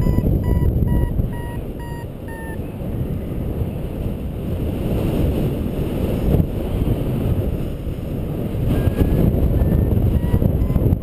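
Paraglider variometer beeping its climb tone at about two beeps a second, stopping about two and a half seconds in and starting again near the end with the pitch rising, as the glider goes up in lift. Wind rushes steadily over the microphone throughout.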